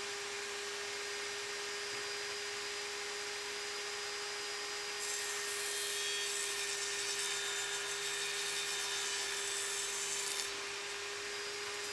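Industrial machinery running with a steady hum. A harsh, grinding hiss joins in about five seconds in and cuts off suddenly about five seconds later.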